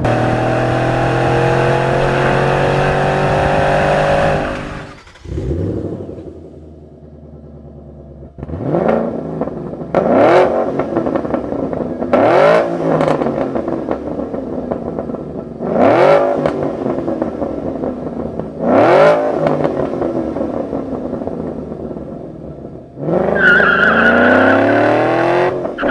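Ford Mustang GT's 5.0 V8 through a Borla stainless cat-back exhaust. It pulls under throttle with the pitch rising steadily for about four seconds, then cuts off. After a quieter idle come a series of sharp free revs that rise and fall, and near the end another pull with rising pitch.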